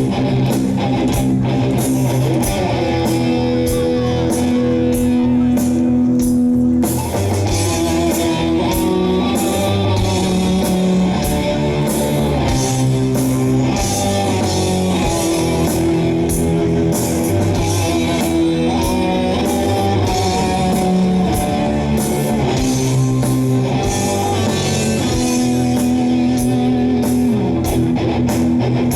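Rock band playing live: electric guitars and bass over a steady drum beat, an instrumental passage without singing, with a brief break in the cymbals about seven seconds in.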